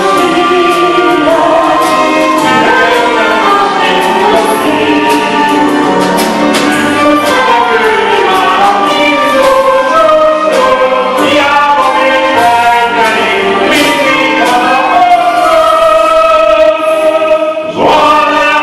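A man sings a Hungarian song live into a microphone, accompanied by a Yamaha electronic keyboard. The music breaks off briefly just before the end.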